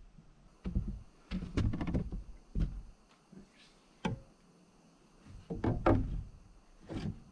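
Irregular wooden thunks and knocks as a 2x4 brace board is handled and set against the upright studs of a newly framed wall.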